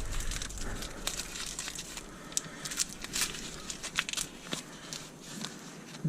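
Newspaper packing paper crinkling and rustling as it is handled, with scattered light crackles and clicks.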